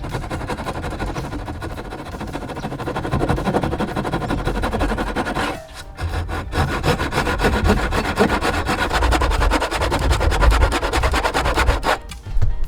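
Hand saw cutting through wood in quick, repeated strokes, stopping briefly about six seconds in and again near the end.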